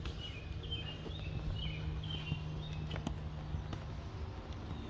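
Quiet outdoor background: a handful of faint, short, high bird chirps in the first two seconds over a steady low hum, with a few light clicks or taps.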